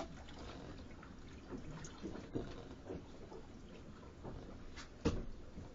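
Water lapping against the hull of a small boat, with a few faint knocks, the loudest near the end.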